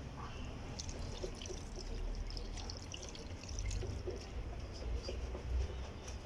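Water poured from a jug over hands for washing before a meal, splashing and trickling into a basin, with a low rumble underneath.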